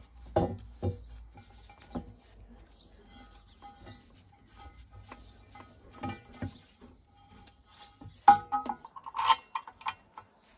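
Metal parts of a vintage electric fire bell being handled and fitted together: scattered clicks, taps and knocks as the coil and striker assembly is set onto the painted backplate, the loudest knock about eight seconds in, followed by a quick run of clinks.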